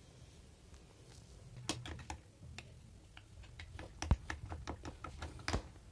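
A steel spoon clinking and tapping against a glass mug in quick, irregular clicks as sattu flour is stirred into water, starting a little under two seconds in.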